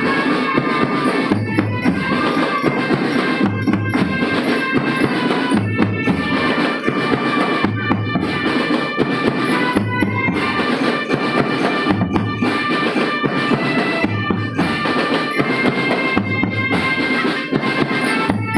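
Marching drum band playing: snare and bass drums drumming steadily under sustained melody lines, with a low bass-drum accent about every two seconds.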